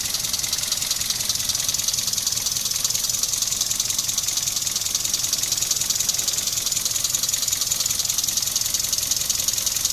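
Mitsubishi 4G33 inline-four petrol engine idling steadily with a fast ticking clatter. This is the rough idle the owner puts down to a vacuum leak.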